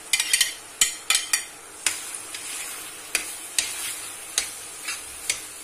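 Metal spoon tapping and scraping onion off a plate into a steel pan, then stirring, with sharp clicks of the spoon against plate and pan. From about two seconds in the minced meat and onion sizzle steadily as they fry in the oil.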